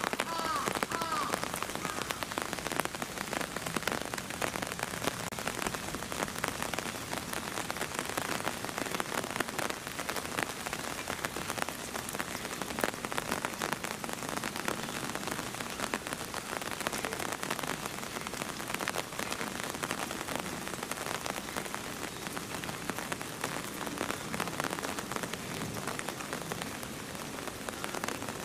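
Steady rain falling and pattering on a surface, with many individual drops ticking close by.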